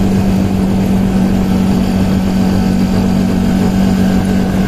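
Motor rickshaw engine running steadily while under way, heard from the passenger seat: a loud, even drone over rushing road noise.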